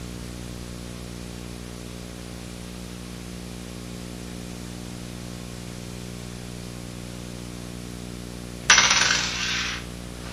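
Steady low electrical hum; about nine seconds in, a small coin drops onto a wooden tabletop with a sudden clatter that rattles and dies away over about a second.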